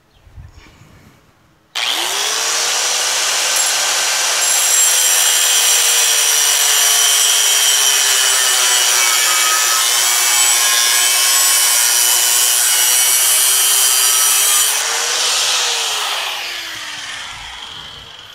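Corded angle grinder with a cutoff disc starting up and cutting through a metal plate clamped in a vise. Its motor note sags slightly as the disc bites and rises when the cut ends, about three seconds before the end, then the grinder winds down.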